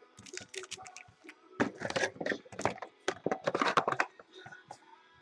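Trading-card packaging handled and torn open by hand: irregular crinkles, crackles and small clicks, busiest from about one and a half to four seconds in.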